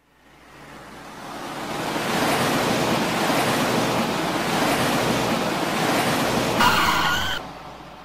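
Car sound effect: a rush of engine and road noise swells in and holds steady. About six and a half seconds in, a short tyre squeal sits on top of it and cuts off sharply, then the noise fades away.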